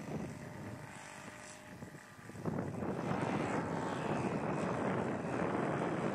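Large radio-controlled Piper Cub model aircraft flying past, its motor and propeller running steadily and growing clearly louder about two and a half seconds in.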